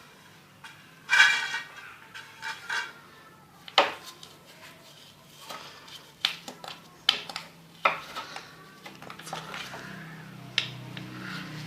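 Scattered metallic clinks and knocks, one ringing briefly about a second in, as of tools or metal parts being handled. A low steady hum comes up near the end.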